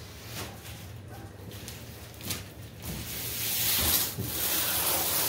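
A few light knocks, then from about three seconds in a loud, steady scraping hiss: a large cardboard mower box being slid across a bare concrete floor.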